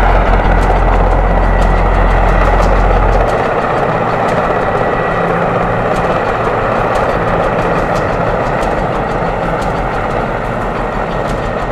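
A heavy Mi-8-type helicopter hovering with a water bucket slung beneath it, its turbines and rotor running in a steady dense noise with a thin whine on top. A deep low rumble drops away about three seconds in.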